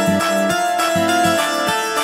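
Instrumental background music with a steady rhythm of short notes.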